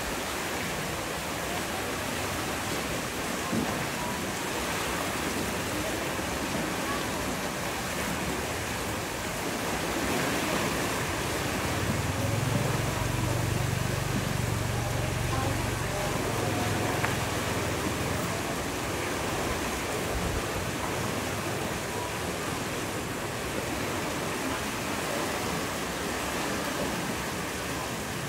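Water rushing out of a concrete dam sluice, a steady churning hiss, growing a little louder for several seconds around the middle.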